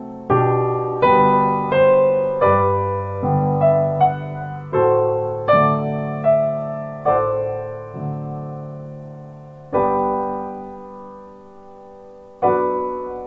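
Background piano music: slow chords struck about once a second, each left to ring and fade, spacing out into longer held chords near the end.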